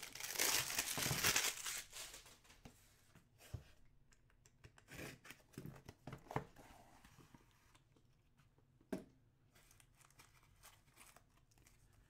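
Plastic shrink-wrap being torn and crinkled off a small cardboard box of hockey cards for the first two seconds, then quieter rustles, taps and clicks as the box is opened and the cards are handled.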